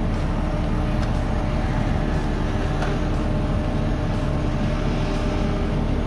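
Caterpillar skid steer's diesel engine running steadily, with a constant low hum.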